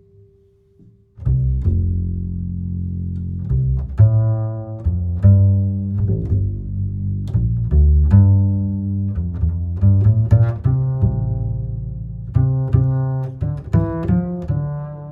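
Music with deep, sustained low notes and sharp plucked note attacks, starting about a second in after a near-quiet moment.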